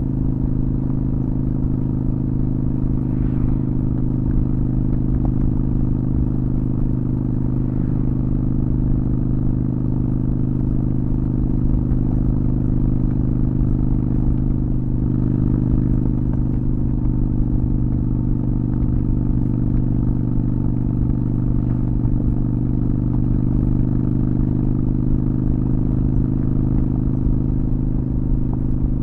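Honda Shadow VT600's V-twin engine running at a steady, unchanging pitch.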